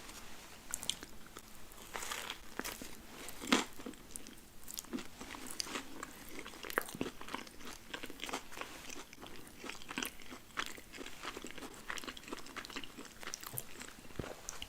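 Close-miked eating of a burger and french fries: crunchy biting and wet chewing with many small crackles, and one sharp bite about three and a half seconds in.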